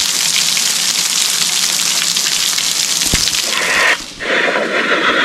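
Small forest waterfall, its flow low: water falling and splashing in a steady hiss. About four seconds in the sound drops out briefly and comes back changed.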